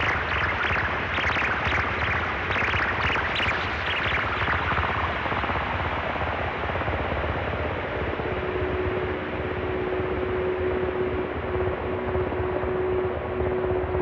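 Eowave Quadrantid Swarm synthesizer played through heavy reverb and delay. A run of short high pings fades out over the first few seconds into a noisy wash over a low rumble, and a steady held tone comes in about eight seconds in.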